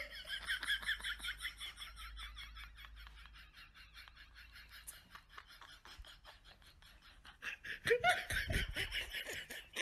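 Laughter: a quick run of repeated 'ha-ha' pulses that fades out over the first few seconds, then laughter again from near the end.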